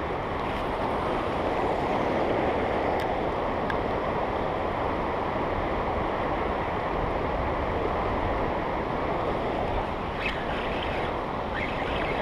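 Steady rushing of a river running over rocky rapids.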